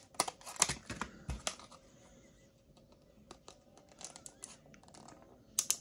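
Clear plastic blister packaging crackling and snapping as it is cut and pried apart, in sharp irregular crackles: a dense run in the first second and a half, a quieter stretch, then more snaps building to a loud one near the end.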